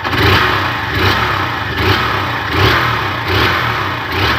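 2011 Honda CG Fan 150's single-cylinder four-stroke engine running and revved in about six quick throttle blips, a little under one a second. This is its stock sound, with the air filter and intake hose in place.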